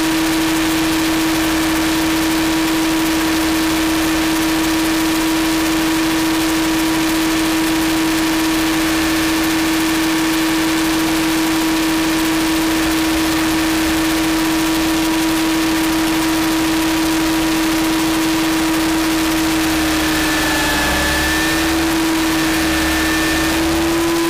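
Align T-REX 700 RC helicopter in flight, heard from a camera on its tail boom: a loud, steady whine from the drivetrain and spinning rotors over rushing air. The pitch dips slightly and recovers near the end.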